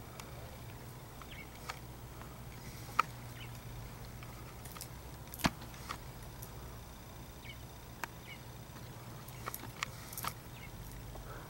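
Crows pecking food from a shallow bowl, their beaks tapping against it in a few sharp, scattered clicks, the loudest about halfway through, over a low steady hum.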